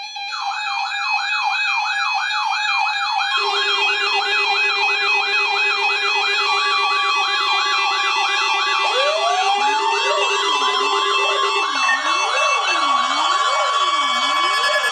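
Several electronic sirens layered over one another: a fast yelp sweeping up and down about three times a second, with steady tones joining it. About nine seconds in a wail rises, and a lower siren starts sweeping slowly up and down about once a second.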